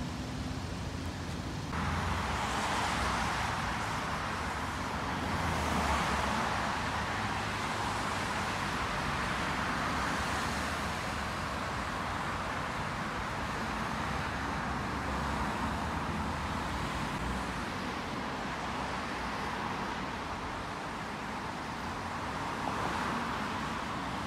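Steady city road traffic noise, an even roar of passing vehicles that steps up sharply about two seconds in.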